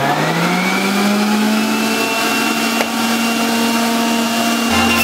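Breville BJB840XL centrifugal juicer's motor winding up to speed with a rising whine during the first second, then running steady at full speed. A single sharp click about three seconds in.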